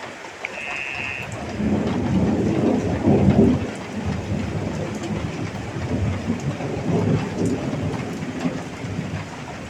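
Heavy rain falling steadily while thunder rumbles in about a second and a half in, swelling to a peak a second or two later and rolling on. A brief high tone sounds near the start.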